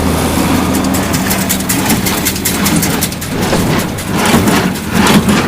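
Case IH 8545 small square baler running behind a John Deere 4230 tractor: a steady diesel engine hum with irregular clattering and knocks from the baler.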